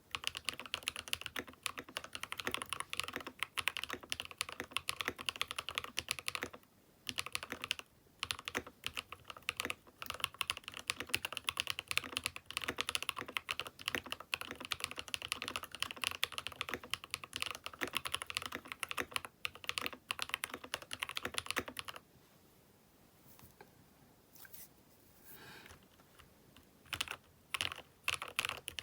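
Fast typing on a Keychron K6 Pro mechanical keyboard fitted with aftermarket switches: a dense stream of keystroke clacks with a brief pause about seven seconds in. About three quarters of the way through the typing breaks off to a few scattered keystrokes, then picks up again at the end.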